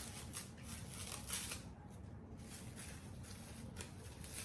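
Faint handling sounds from a hot sauce bottle being shaken and dashed onto food: a few short, soft hissy scrapes and rustles.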